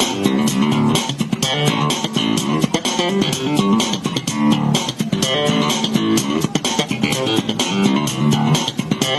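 Background music: a guitar-led instrumental with bass and a steady beat.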